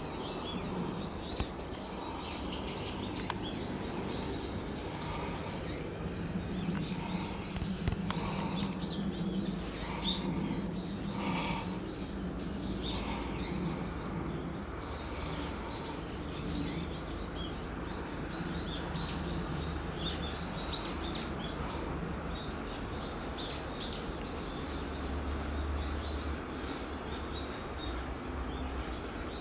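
A flock of small birds chirping: many short, high calls overlapping throughout, over a steady low rumble.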